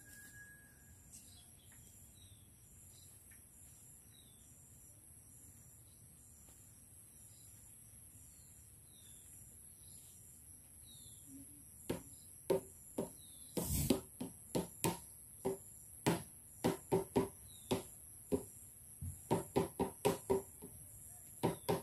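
Machete chopping at plant stalks: an irregular run of short, sharp, ringing chops, two or three a second, starting about halfway through with one heavier thud among them. Before that, only a faint high steady drone.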